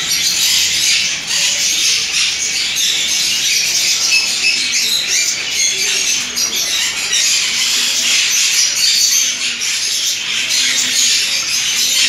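A large flock of caged budgerigars chattering and squawking all at once, a continuous, noisy high-pitched twittering with no break.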